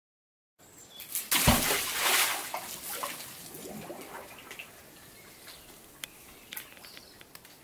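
A magnet on a rope splashing into the water of a stone-lined well about a second in, then the water sloshing and settling, with a few small drips and knocks.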